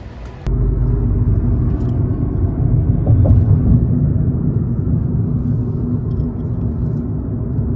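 Road and engine noise inside a moving car: a loud, steady low rumble that starts abruptly about half a second in, after faint outdoor ambience.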